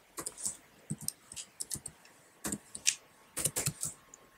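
Computer keyboard being typed on: short, irregular key clicks, a few at a time with brief pauses between.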